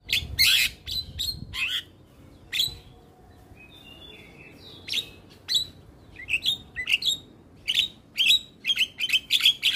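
Javan myna calling in song: a run of short, sharp chattering notes, a softer whistled phrase about four seconds in, then calls coming quicker and closer together toward the end.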